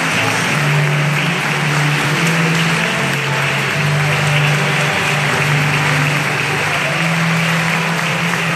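Steady applause from a large crowd, with music playing underneath in long held low notes.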